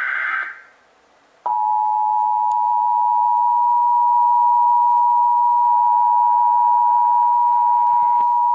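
The last burst of an Emergency Alert System SAME data header, a screechy digital warble, ends about half a second in. After a short gap the EAS attention signal starts about a second and a half in: the standard 853 and 960 Hz two-tone alert, held steady and loud.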